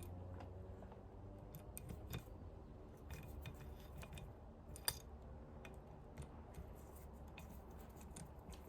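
Faint, irregular small metallic clicks and ticks of hand tools working on engine parts, with one sharper click about five seconds in, over a low steady hum.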